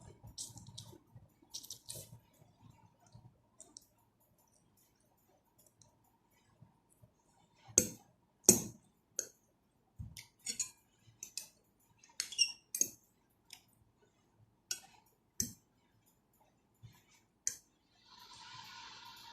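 Eating utensils clicking and clinking against a soup bowl in scattered sharp taps with quiet gaps between them, the loudest two about eight seconds in. A soft steady rushing noise starts near the end.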